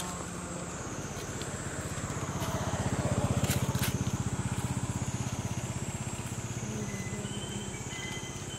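A small engine running with a fast low pulse, getting louder to a peak about three seconds in and then fading away.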